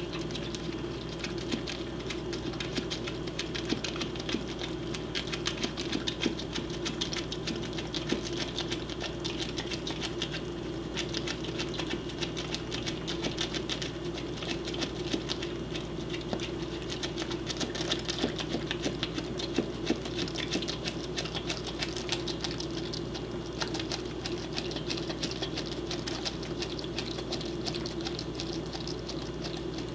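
A corgi mouthing and nibbling a whole egg, with dense, rapid small clicks and scrapes of teeth on eggshell over a steady low hum.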